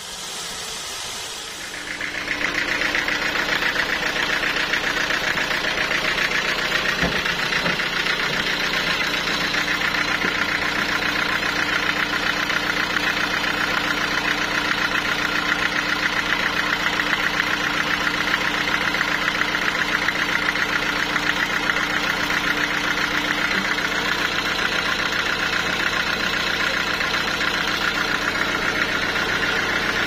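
A band sawmill blade hisses through a teak beam for about the first two seconds. Then a steady engine sound with a fast, even pulse takes over: the sawmill's engine running.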